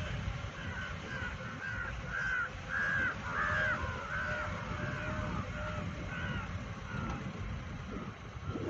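Renault Triber driving slowly over a rough dirt track, heard from inside the cabin: a steady low rumble from engine and tyres, with a repeated short high squeak about twice a second, loudest midway.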